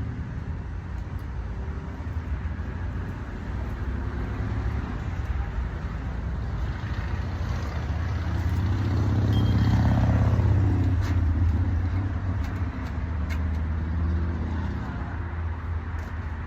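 A road vehicle passing by: its rumble builds, peaks about ten seconds in and fades away, with the pitch falling as it goes past.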